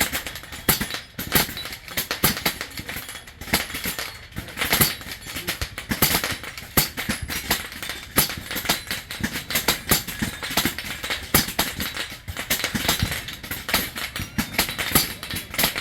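Rapid, irregular cracks of PCP air rifles firing, several shots a second from several shooters at once, including a Daystate Delta Wolf, during a timed speed silhouette round.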